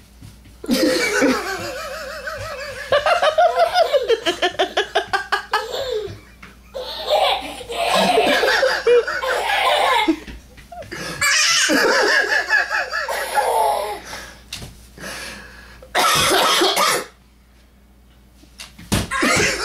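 Hearty laughter in several long bouts, one of them a quick run of ha-ha pulses about five a second, with a short noisy burst like a cough about sixteen seconds in.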